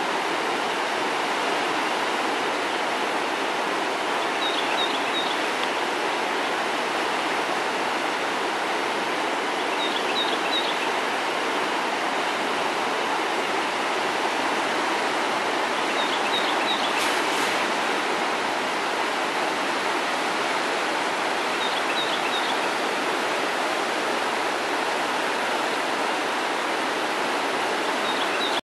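Patapsco River in flood, its high, fast water rushing with a steady roar. Short high chirps of three or four quick notes recur about every six seconds over it.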